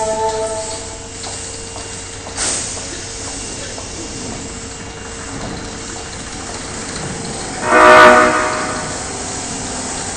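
Osaka Municipal Subway 22 series train's horn (警笛) giving one short blast about eight seconds in, with the unusual, off-sounding tone this set's horn is known for. Earlier, a steady chord of tones cuts off about a second in and a brief thump follows.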